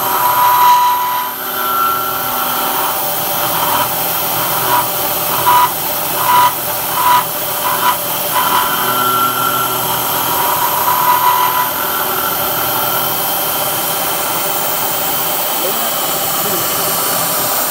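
Milling machine spindle running a half-inch end mill around a hole in hot-rolled steel, with a ringing chatter tone that comes and goes, the cutter vibrating in the cut. In the middle a run of short sharp chirps sounds as the tool chatters. Later the ringing dies away and only the steady running of the machine is left.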